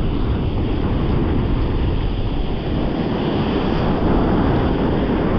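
Ocean surf breaking and washing up the beach, with wind buffeting the microphone in a steady low rumble.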